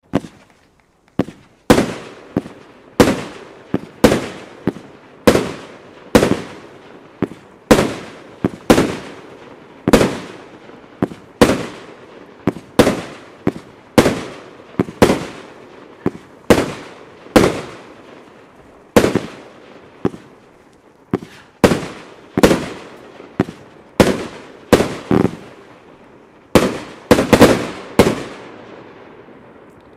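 A 25-shot, 30 mm fireworks cake firing its shells one after another: sharp bangs about once a second, each trailing off. Near the end comes a quick run of several bangs close together, the cake's finale.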